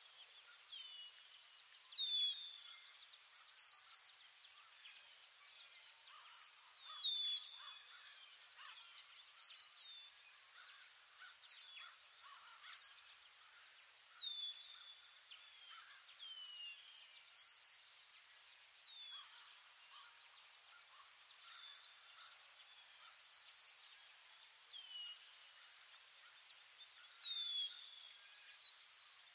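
Ambient forest soundscape: insects chirping in a fast, even pulse, with birds giving short falling whistles every second or two.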